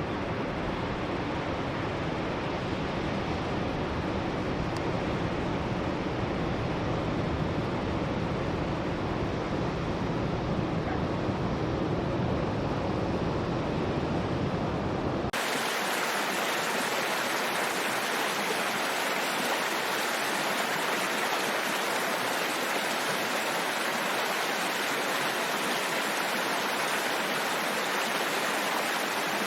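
A deep, steady rushing noise that cuts suddenly about halfway to a brighter, hissing rush of running water such as a stream.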